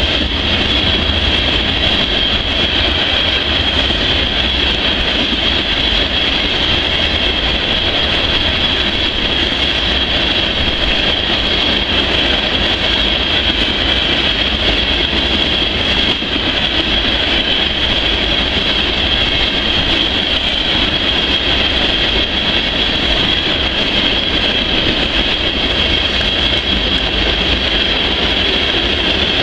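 Loaded freight train's hopper cars rolling past at close range: a steady rumble of wheels on rail, with a constant high-pitched ring over it.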